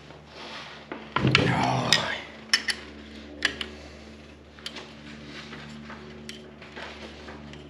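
Metal wrench work on a tractor clutch assembly as its jam nuts are loosened: a loud scraping clatter a little over a second in, then sharp metallic clicks and clinks about once a second, over a steady low hum.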